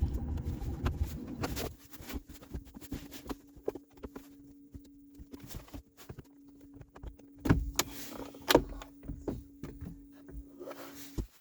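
A steady electric hum at one unchanging pitch, like a small electric motor running, which cuts off suddenly near the end. Scattered clicks and two louder knocks from handling parts sound over it.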